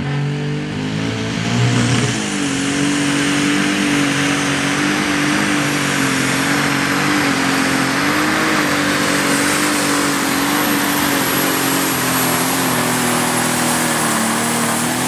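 Limited Superstock pulling tractor's engine revving up about two seconds in, then held at full throttle while it drags the brake sled, the revs wavering slightly under load. A high steady whine sits above the engine note.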